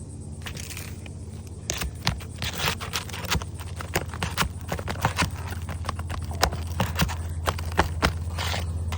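Irregular sharp clicks and knocks of a pry bar working under roof shingles, lifting the tabs and loosening nails during a shingle removal. A steady low hum runs underneath.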